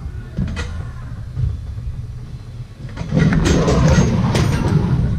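Bowling-alley pinsetter machinery running on neighbouring lanes: a steady low rumble, with a louder rattling clatter starting about three seconds in and easing off near the end.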